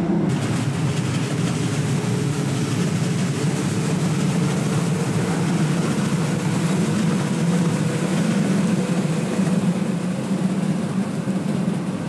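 Steady running noise of a JR West 221 series electric train passing along the line below, mixed with road traffic.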